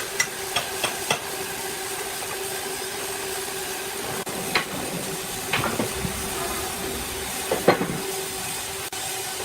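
Sawmill machinery running with a steady hiss and hum, broken by several sharp knocks of wood or metal.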